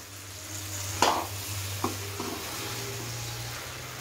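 Metal spoon stirring and scraping amla (Indian gooseberry) pickle in a pan of sizzling sesame oil and spice powder, with a sharper scrape against the pan about a second in and a couple of lighter clicks shortly after.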